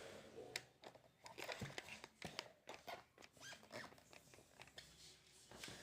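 Faint, scattered clicks and rustling.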